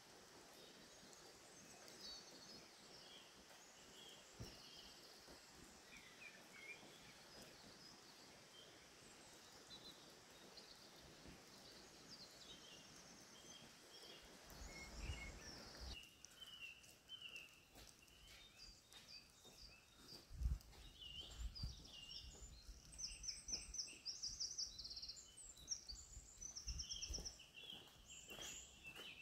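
Faint woodland birdsong: several small birds chirping and trilling, at first over a soft steady rush that cuts out abruptly about halfway through. After that, scattered soft low thumps, one sharper thump a few seconds later.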